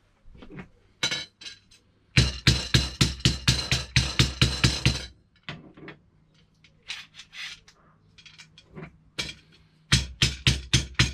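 Rawhide-faced hammer tapping a metal beach-shelter pole, with a bolt inside, against a metal angle to straighten a kink. Quick even runs of blows, about four or five a second, with a light metallic ring, come about two seconds in and again near the end, and lighter scattered taps fall between them.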